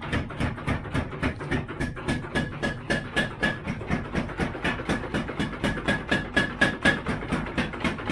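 A forging hammer pounding hot steel for a kitchen knife, about five even, ringing blows a second.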